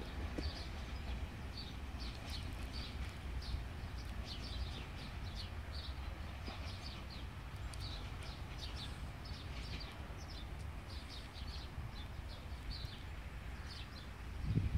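Small birds chirping, a busy stream of short high chirps, over a steady low rumble. A louder low rumble swells up right at the end.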